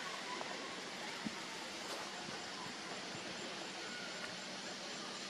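Steady outdoor background hiss with no clear single source, a few faint short high chirps and a soft tick about a second in.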